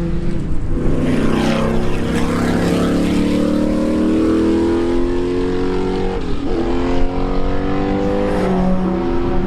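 Racing car engine at high revs, accelerating with its pitch climbing steadily, then dropping sharply about six seconds in and again near the end, like upshifts. Around one to three seconds in, another falling engine note goes by.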